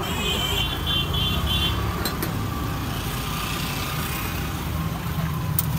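Steady low rumble of passing road traffic, with a quick run of about six high beeps in the first second and a half and a couple of sharp clicks.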